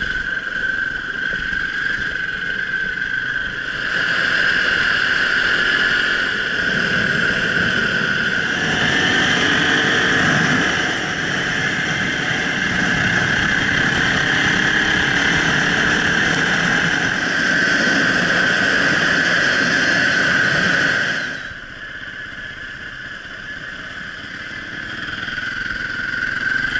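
Enduro motorcycle running while being ridden, heard from a helmet-mounted camera. The sound is steady and loud, drops for a few seconds about three-quarters of the way through, then rises again near the end.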